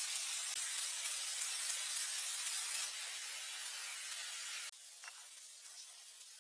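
Steady hissing noise that cuts off suddenly near the end, leaving a few faint ticks.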